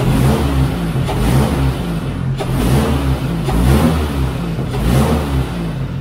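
2006 Subaru Impreza's 2.5-litre single-cam flat-four running loud through a leaky exhaust on its first run after an engine rebuild, its speed rising and falling several times as it is revved.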